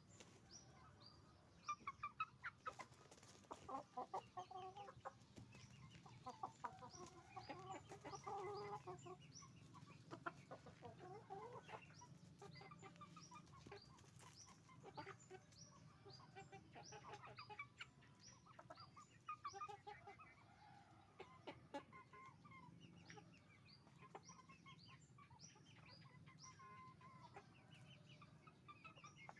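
A flock of chickens clucking and calling, busiest in the first ten seconds, with short high chirps repeating throughout.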